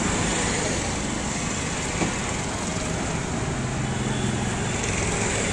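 Steady street traffic noise of passing vehicles and engines, with a single sharp tap about two seconds in.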